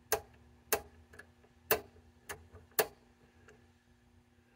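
Front-panel controls of an HP 1220A oscilloscope being switched by hand: about five sharp clicks in the first three seconds with a few fainter ones between, like a rotary range switch stepping through its detents, over a faint steady hum.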